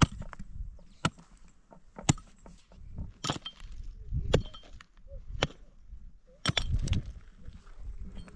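A series of sharp knocks, about one a second, from a hand tool striking during manual work.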